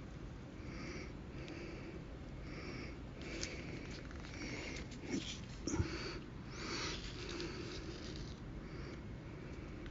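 Faint handling of a paper manual: two sharp clicks about five to six seconds in, then a short rustle, over short, faint, high-pitched sounds that recur about once a second.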